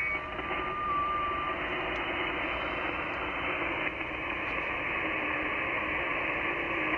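Shortwave transceiver receiving the 20 m band in SSB mode: a steady hiss of band noise, with faint whistling FT8 data tones stepping in pitch.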